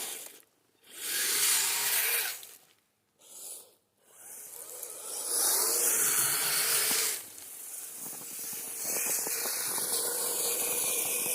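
Kyosho Blizzard RC snowcat's tracks churning through snow, a hissing rush that comes in bursts and stops briefly twice in the first few seconds.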